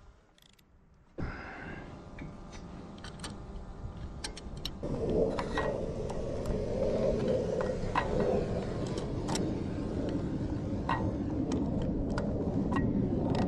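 Irregular metallic clicks and taps of a wrench on the anemometer mast fittings, over wind rushing on the microphone that starts suddenly about a second in and grows louder after about five seconds.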